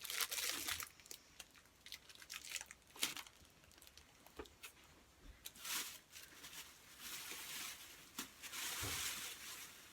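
Plastic bag rustling and crinkling as it is handled and opened, in uneven spells with a few sharp clicks, the longer rustles in the second half.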